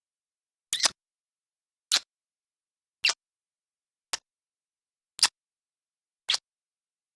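Kissing sound effect: six short lip smacks, evenly spaced about a second apart with silence between them, a couple of them doubled.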